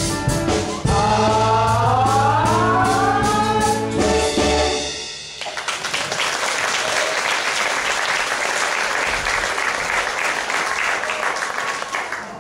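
A stage cast singing the end of a song with instrumental backing, the voices rising to a long held final note that cuts off about five seconds in; audience applause follows and fades near the end.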